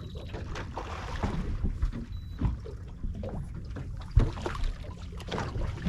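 Water splashing and sloshing against a small boat's hull, with scattered knocks and a loud thump about four seconds in, as a hooked fish is brought alongside.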